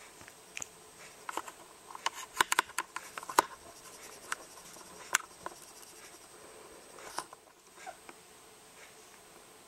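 Scattered scratching and clicking from a hand rubbing a young puppy's fur against a terry-cloth blanket, in a quick cluster about one to three and a half seconds in and then a few single scratches.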